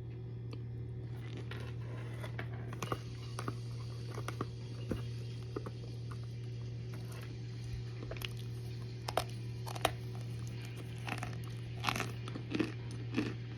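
Brick of baked cornstarch crunching and crackling in scattered sharp, irregular snaps, growing louder and more frequent near the end, over a steady low hum.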